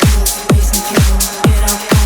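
Electronic house music from a DJ mix, without vocals: a four-on-the-floor kick drum at about two beats a second, off-beat hi-hats between the kicks, and a held synth chord underneath.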